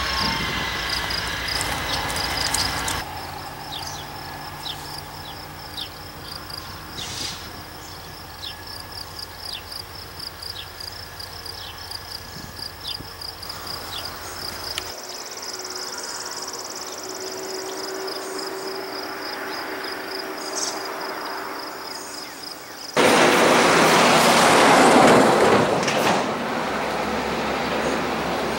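CSX work train's diesel locomotive running, heard close at first and then more distantly, under a steady high chirping of insects. Near the end a loud rushing noise lasts about three seconds.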